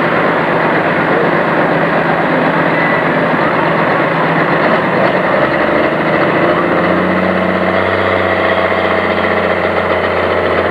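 Turbocharged diesel engine of an International 1066 pulling tractor running hard at the starting line, blowing black smoke. About six seconds in its note shifts lower and steadier as the tractor moves off down the track under load.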